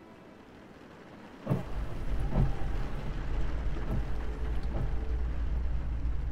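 Inside a car cabin on a wet road: the low rumble of the car driving, with a hiss of tyres and rain, starts suddenly about a second and a half in. A few faint knocks come through it.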